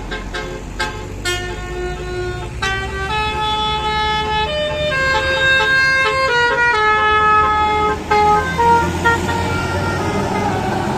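A bus's basuri 'telolet' multi-tone horn playing a tune: a couple of short quick toots, then a run of held musical horn notes stepping up and down in pitch. The bus's engine runs underneath.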